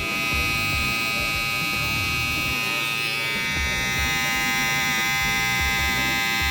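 BaBylissPRO FX One Lo-Pro cordless hair trimmer with a Graphite 2.0 blade running steadily: an even motor hum and blade buzz of several steady tones, the 6,800 RPM motor at full speed.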